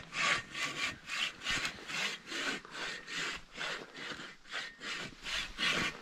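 Hand saw cutting through the dry trunk of a standing dead tree, in steady back-and-forth strokes at about three a second.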